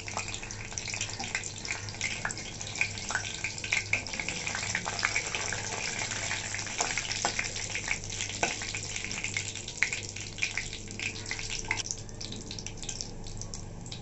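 Cumin seeds and bay leaves sizzling in hot oil in a kadhai, a steady hiss with many small crackles.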